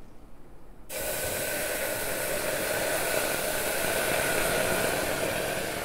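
Water hissing and sizzling as it is poured into a hot pressure cooker onto split moong dal just roasted in ghee. The hiss starts suddenly about a second in, stays steady, and cuts off near the end.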